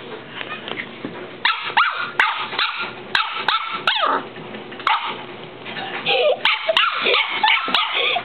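Shetland sheepdog puppy barking and yipping in short, high calls, coming faster toward the end.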